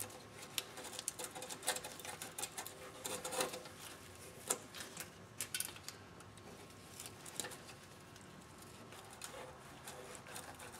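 Faint, irregular clicking and scraping of a low-profile fuel line disconnect tool and the quick-connect fitting on the fuel filter line as they are pushed and wiggled to release the line's locking fingers.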